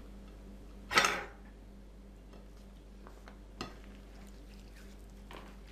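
Kitchen handling sounds as a chum salmon head is peppered from a paper packet and turned on a glass plate: one short, loud noise about a second in, then two faint clicks later.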